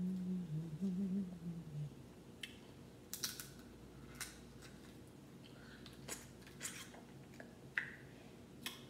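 A short low hum from the eater for the first two seconds, then scattered sharp clicks and cracks as crab-leg shells are broken apart and picked with gloved fingers over a plate.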